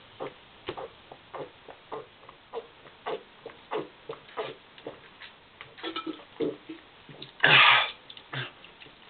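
A man gulping down a can of carbonated energy drink in one go, shotgun-style, in rapid swallows about three a second, then a loud rasping burst about half a second long near the end.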